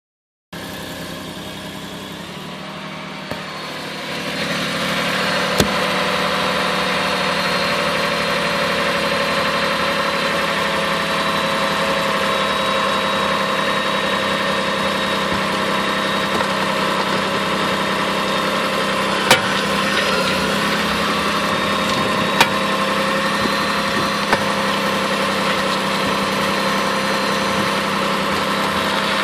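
Lexus RX400h running with a steady hum that grows louder about four seconds in, broken by a handful of sharp, isolated pops. The pops are the left-front popping noise that persists despite a new lower control arm, strut assembly, sway bar end links, tie rods and CV shaft.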